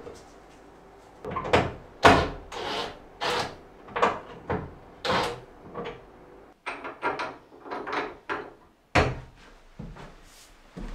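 Irregular wooden knocks and clunks, a dozen or more, from fitting a gas hob into a wooden kitchen countertop and working at the cabinet below it. The loudest knock comes about two seconds in; lighter, sharper clicks follow in the middle.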